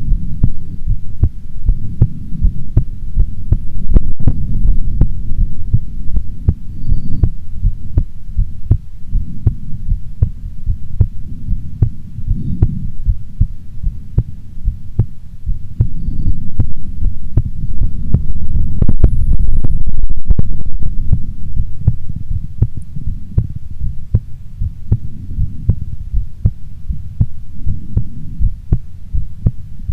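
A woman's heartbeat: a steady series of low beats over a continuous low rumble.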